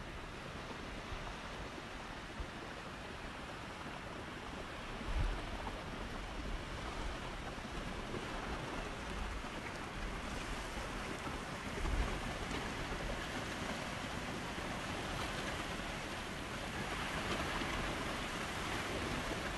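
Ocean surf washing up a sandy beach: a steady rush of breaking waves and shallow water over the sand, with wind now and then rumbling on the microphone.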